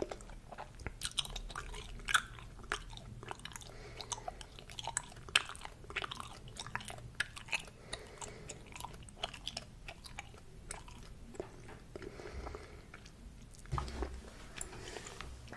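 Hubba Bubba bubble gum being chewed close to the microphone: a busy, irregular run of sharp mouth clicks and smacks.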